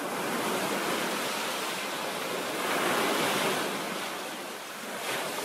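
Ocean surf breaking and washing up a sandy beach, a steady rush that swells to its loudest about halfway through.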